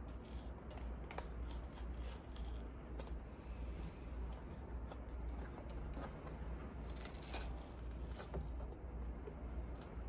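Paper gable-top milk carton being handled and its spout pried open by hand: scratchy crinkling and sharp little clicks of the waxed cardboard, in one spell over the first few seconds and another about seven seconds in. A low steady hum runs underneath.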